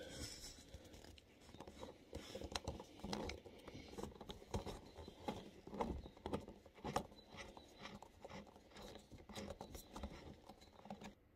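A Phillips-head screw being turned in by hand with a screwdriver: faint, irregular clicks and scrapes of the tool working in the screw head.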